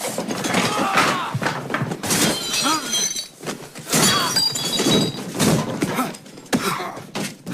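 Glass shattering and things crashing and thudding in a struggle, with glass ringing after the breaks, mixed with strained grunts and cries.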